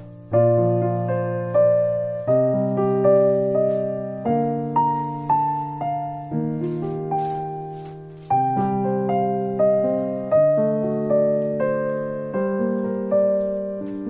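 Background music: a gentle solo piano piece, notes and chords struck about once every second or so, each fading before the next.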